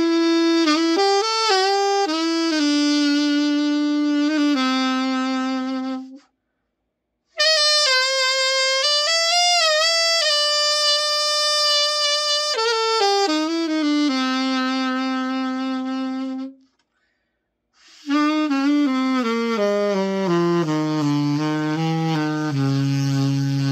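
Yamaha YAS-475 alto saxophone played solo in three short phrases with brief pauses between them, each phrase ending on a held note; the last phrase steps down into the low register. It is a play test of the horn after a full overhaul.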